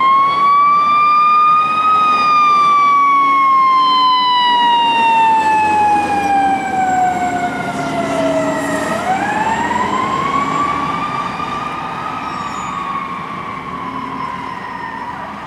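Fire engine siren wailing. It peaks high, slides slowly down over several seconds, winds back up about nine seconds in, then starts to fall again. It grows fainter near the end as the truck pulls away.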